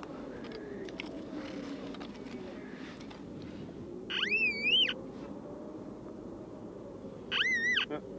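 Metal detector giving two warbling electronic beeps, each under a second and about three seconds apart, the pitch wavering up and down within each, signalling metal in the soil under the search coil.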